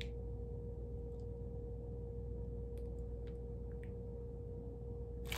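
Quiet room tone: a steady low hum carrying one constant mid-pitched tone, with a few faint soft ticks.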